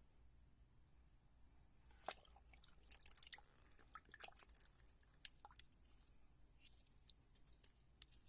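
Faint scattered small clicks, scrapes and drips, starting about two seconds in, as wet plaster investment is worked off a freshly cast silver shift knob.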